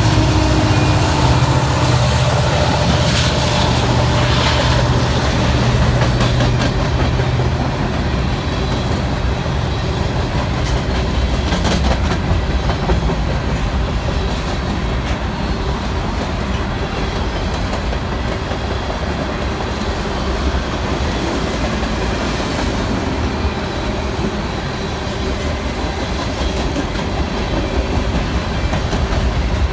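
Norfolk Southern diesel locomotives pass with a steady low engine drone that fades out about seven seconds in. A long string of freight cars follows, rolling by with wheels clattering over the rails.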